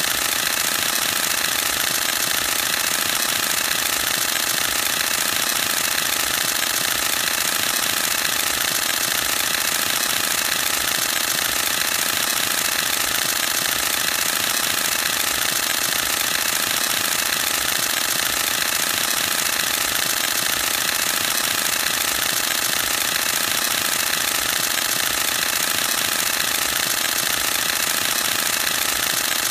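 Canon EOS-1D X Mark II's mirror and shutter firing in a continuous high-speed burst: a rapid, steady mechanical clatter that never pauses.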